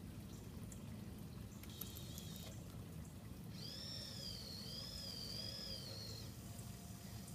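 Small electric hoist motor of a radio-controlled crawler crane whining as it works the cable, the high whine wavering up and down in pitch. It sounds briefly about two seconds in, then again for about two and a half seconds from the middle, over a steady low hum.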